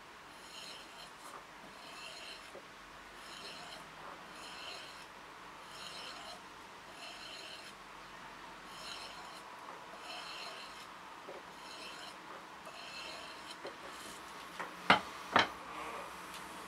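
Knife blade stroked repeatedly along a hand-held sharpening bar: an even, gritty scrape roughly once a second. Two sharp loud clicks come near the end.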